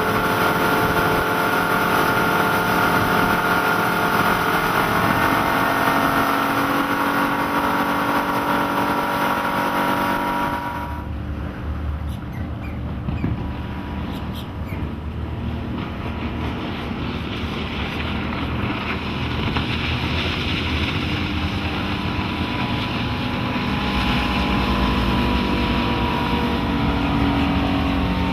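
Suzuki 175 HP four-stroke outboard pushing a Sea Fox 236 walk-around boat at planing speed. For the first third it is heard aboard, a steady engine note under a rush of wind and water. After a cut it is heard from the shore as the boat runs by, with more low rumble.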